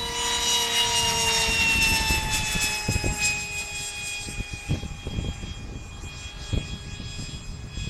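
Electric ducted fan on a radio-controlled helicopter running at full power just after being switched on: a loud high-pitched whine over a rush of air, its pitch sagging slowly. A few short low thumps come through about three, five and six and a half seconds in.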